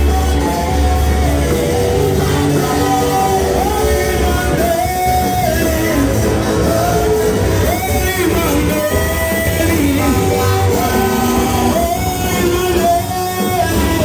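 Live praise-and-worship music: voices singing over a band with guitar and a heavy bass line, loud and continuous.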